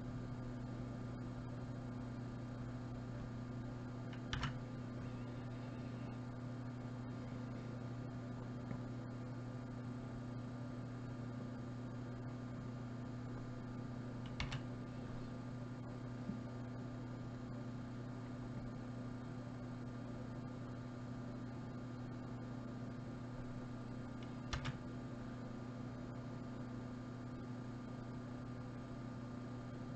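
Steady electrical mains hum, with three single sharp clicks about ten seconds apart.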